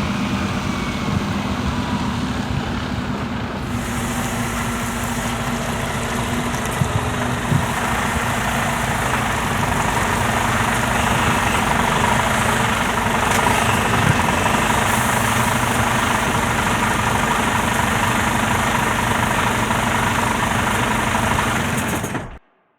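Truck engine running steadily, with a couple of brief knocks about seven seconds in. The sound cuts off suddenly near the end.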